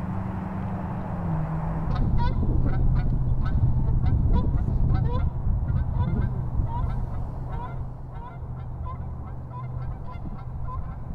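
A bird calling over and over, short rising calls about one every three-quarters of a second, over a steady low engine hum.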